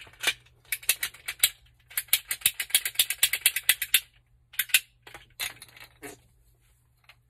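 Ratcheting PVC pipe cutter clicking as it is worked through plastic pipe: runs of rapid clicks, about seven a second, in several bursts that stop about six seconds in.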